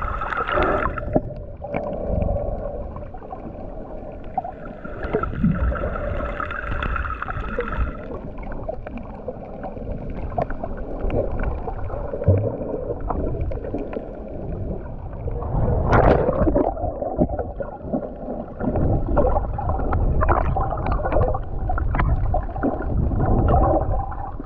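Muffled underwater sound from a camera held below the surface while snorkeling: gurgling and sloshing water with a low rumble. There is a steady hum over the first several seconds and one brief louder surge about 16 seconds in.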